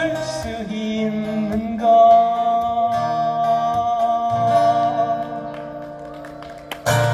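Busker singing the closing phrase of a ballad over acoustic guitar. The voice holds a long final note that fades away, and a last strummed chord rings near the end.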